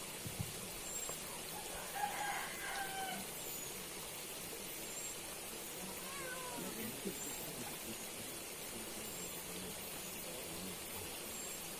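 An animal calling twice, a short falling cry about two seconds in and another around six seconds, over a steady outdoor hiss.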